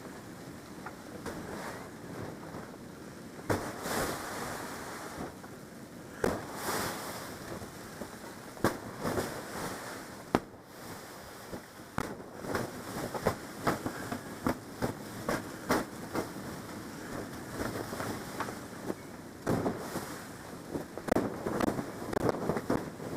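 Blizzard wind rushing and buffeting, broken by many irregular sharp crackles and thumps that come thicker in the second half.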